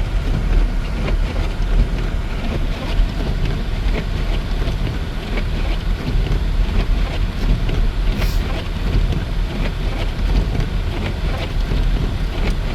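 Car driving on a snowy road, heard from inside the cabin: steady road and engine noise with wind, and scattered small clicks.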